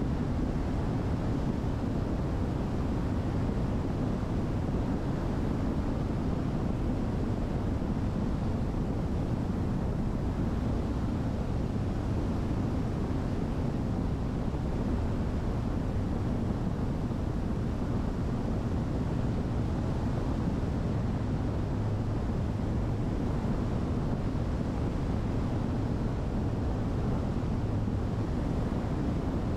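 Steady in-flight cabin drone of a Diamond DA62, its twin diesel engines and airflow running at a constant cruise setting during a gentle formation turn. The sound is a low, even drone, unchanging throughout.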